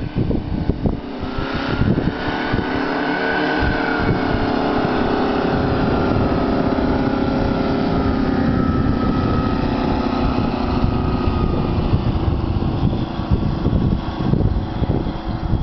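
Propeller engines of a twin-engine experimental light aircraft running as it taxis on skis across snow close by. About two seconds in the engine note rises, then it holds steady.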